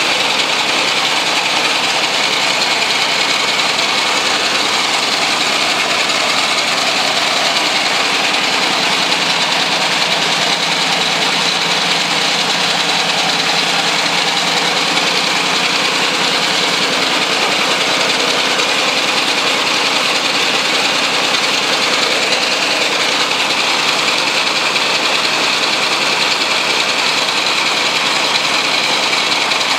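Homemade three-cylinder engine, built from three Briggs & Stratton single-cylinder small engines coupled by a chain, running steadily and loudly at about the highest speed it will rev to.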